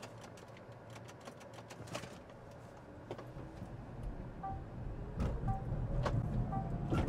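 Car pulling away and driving off on concrete, with a low rumble that grows louder in the second half and a faint, slowly rising whine.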